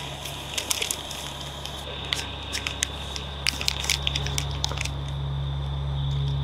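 Paper crinkling and crackling as hands grip and open a paper package: irregular sharp crackles in two clusters, over a steady low hum that swells after about four seconds.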